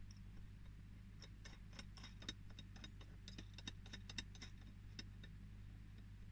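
Faint, irregular clicks and light taps, several a second for a few seconds in the middle, over a steady low hum.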